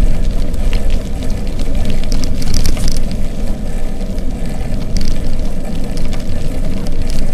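Wind buffeting the microphone of a camera riding along on a moving bicycle: a loud, steady, rumbling rush, with now and then a light click or rattle on top.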